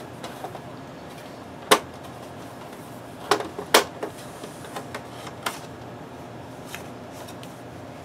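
Back cover plate over the stand mount of a Dell OptiPlex 9020 all-in-one being pried off by hand: a few sharp clicks as its clips let go, the loudest about two seconds in and a quick cluster a little later, then lighter knocks as the plate is handled.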